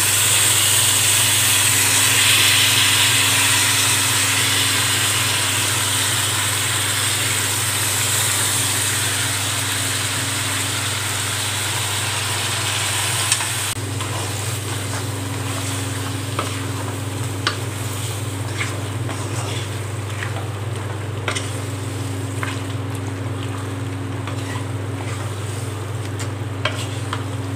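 Raw mutton pieces sizzling in a hot wok, stirred with a wooden spatula that knocks and scrapes against the pan. The sizzle is loudest at first and drops abruptly about halfway, then goes on quieter with scattered knocks, over a steady low hum.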